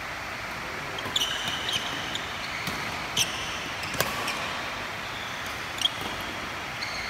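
Badminton doubles rally: several sharp racket hits on the shuttlecock, with short high squeaks from shoes on the court mat.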